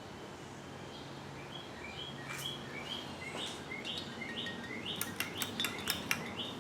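A bird chirping over and over in short, rising two-pitch notes about twice a second, over the faint steady hum of a ceiling fan running on low. A quick run of sharp clicks comes near the end.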